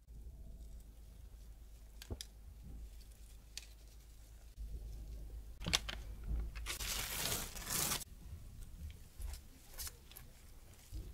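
Coarse pearl salt sprinkled by a gloved hand onto dough rolls on parchment paper: scattered light ticks, with a louder rustle for about a second just past the middle. Near the end comes a soft pastry-brush swish on a roll.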